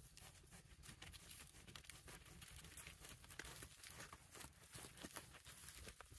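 Near silence, with faint scattered crackles and clicks.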